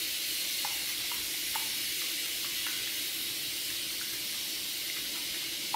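Eggs being beaten with a fork in a glass bowl: a few faint clicks of the fork against the glass over a steady hiss.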